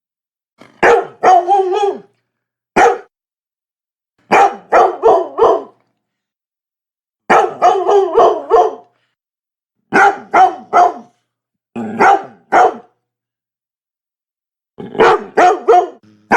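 Labrador dog barking in quick bursts of two to four barks, with short gaps of silence between the bursts.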